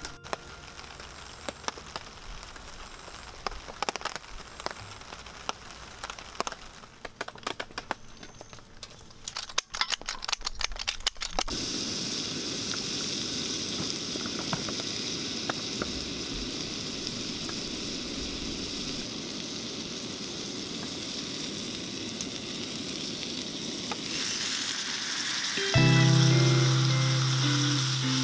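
Butter melting and sizzling in an iron skillet over a wood fire: a steady frying hiss that starts about a third of the way in, after scattered crackles and clicks. Music comes in over it near the end.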